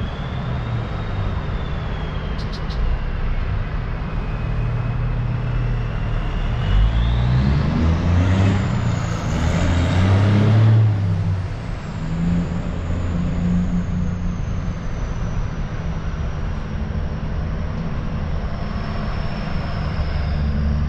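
Large truck engine running steadily, with a high thin whine above it. About halfway through the engine speed climbs for a few seconds and then drops back.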